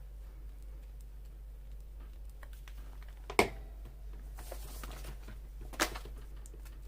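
Paper handled on a tabletop during journal crafting: faint rustling, with two sharp clicks, one about halfway through and one near the end.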